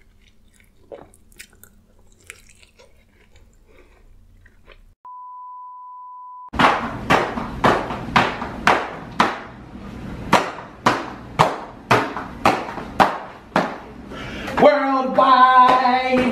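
Faint chewing, then a steady electronic beep for about a second and a half, then loud, evenly spaced stomping footsteps on a tile floor, about two a second for some eight seconds. A man's voice calls out over the last steps.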